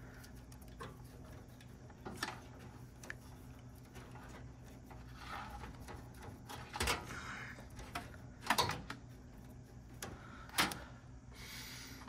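Faint rustling of electrical wires being handled, with a few sharp clicks as connectors are pushed on and a wire nut is twisted on.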